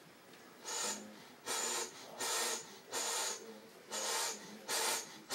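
Hand-cranked box foghorn being pumped: a rhythmic airy whoosh with each turn of the crank, about six in all, roughly one every 0.8 s, with no horn tone yet.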